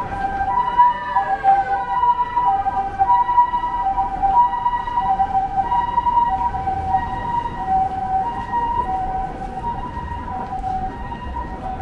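Japanese ambulance siren sounding its two-tone 'pee-po' call, alternating between a higher and a lower pitch about every half second, growing fainter toward the end. A second tone slides downward about a second in.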